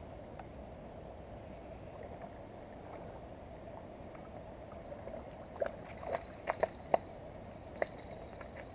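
Footsteps crunching over dry twigs and brush debris, a cluster of sharp snaps and crackles starting about five and a half seconds in, over a steady faint background hum.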